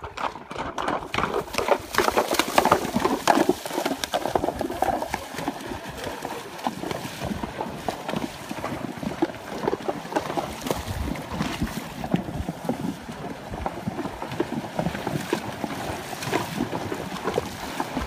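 Horses wading through a shallow, stony river: hooves splashing and sloshing through the water, with many irregular knocks and splashes, loudest for the first few seconds.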